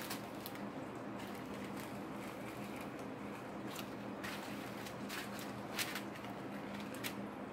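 Small plastic zip bags of diamond-painting drills being handled and laid down, giving faint crinkles and light clicks over a steady low hum.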